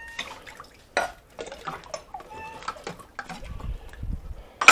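Stainless-steel cat food bowls clinking and clattering as they are handled in a dish rack, with a sharp knock about a second in and a louder metal clank at the end.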